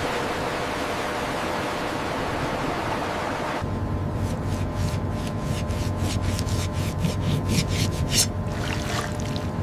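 Rushing sea water, then after an abrupt change a boat's steady low engine drone with a run of sharp splashing hits of water.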